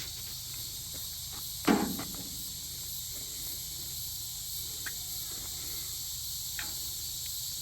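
A steady high hiss with a low hum beneath it, broken by one short, louder sound about 1.7 s in and a couple of faint ticks.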